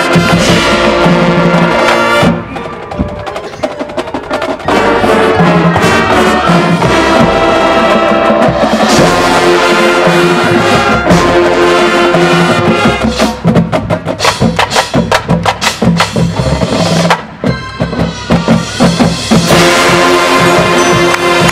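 High school marching band playing its field show: brass chords over drumline and front-ensemble keyboard percussion. It drops to a quieter passage a couple of seconds in. Later comes a stretch of rapid, accented percussion strokes, and it builds to a loud full-band swell near the end.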